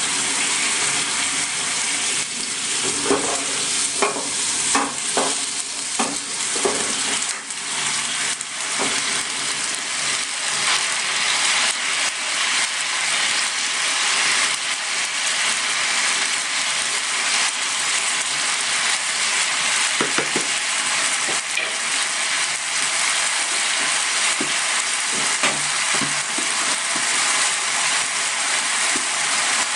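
Chicken sizzling steadily in a frying pan, with a scattering of knocks and scrapes from a utensil stirring and turning the pieces, mostly in the first several seconds and again about two-thirds of the way through.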